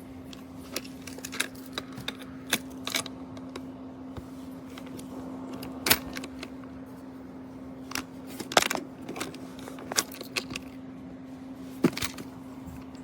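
Irregular sharp clicks and light knocks of small hard objects being handled, a dozen or so at uneven intervals, over a steady low hum.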